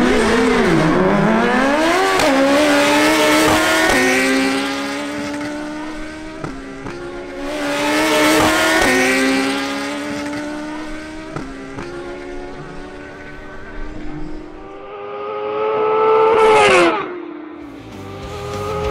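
Suzuki Hayabusa and GSX-R1000 inline-four sportbike engines at full throttle on a quarter-mile drag run. The engine note climbs in pitch and drops back at each gear change. Near the end a bike passes close, loudest just before its pitch falls sharply.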